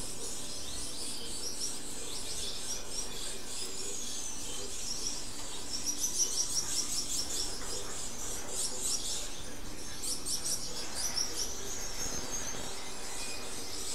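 Small finches chirping: many quick, high calls throughout, busiest about six seconds in and again near the end.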